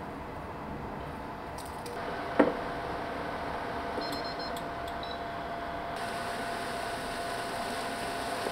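A single sharp knock of a cast-iron pan set down on an electric cooktop, then a steady faint hum with a few light ticks as the cooktop is switched on to heat it.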